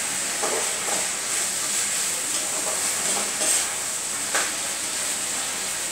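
Cauliflower-tomato curry sizzling in a pan over a high gas flame, with a few strokes of a spatula stirring and scraping the pan.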